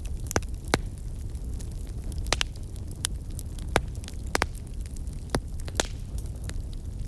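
Wood fire crackling in a fireplace: about eight sharp, irregular pops over a steady low rumble.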